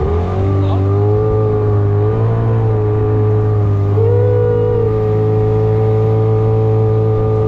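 Outboard motor of a small aluminium boat running steadily under way, its pitch lifting briefly about halfway through, then settling back.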